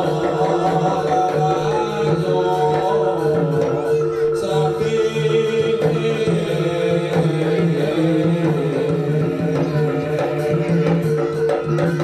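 Live Javanese jaranan accompaniment: hand-drum rhythms over a steady held tone, with a singing voice and a melody line on top.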